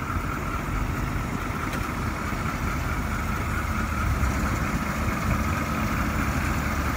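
Diesel engine of a classic Ford C-series E-One fire truck running steadily at low speed as the truck rolls up and comes to rest at idle.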